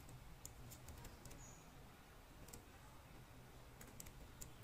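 Faint computer keyboard keystrokes: a scattering of light clicks, several close together in the first second and a few more near the end.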